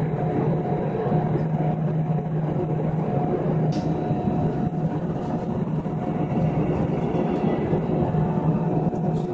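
Steady hum inside an Airbus A319 cabin during deicing, with a low droning tone and a fainter higher tone held throughout under an even rushing noise.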